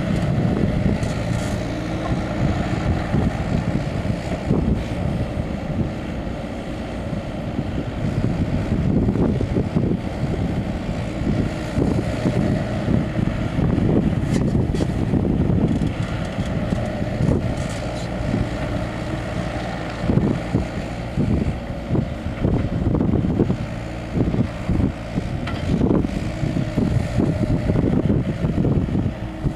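John Deere 60D mini excavator's diesel engine running steadily as the machine digs and dumps spoil from its bucket.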